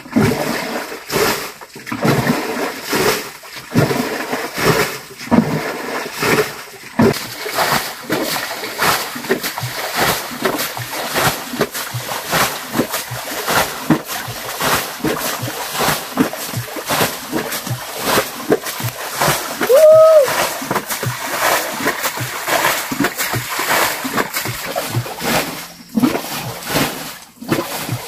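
Water splashing over and over in a shallow, muddy stream pool, in a dense, uneven run of short splashes. About two-thirds of the way through, a brief pitched call rises and falls, the loudest moment.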